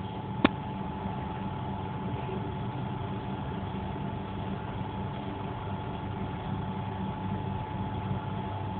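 Engine running steadily: a low hum with a thin, steady high whine over it, and one sharp click about half a second in.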